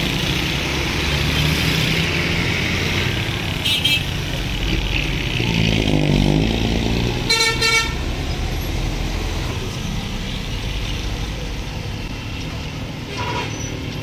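Busy road traffic with engines running steadily and short vehicle horn toots: a brief one about 4 seconds in, the loudest about 7.5 seconds in, and another near the end. About 6 seconds in, a vehicle engine rises and falls in pitch as it passes.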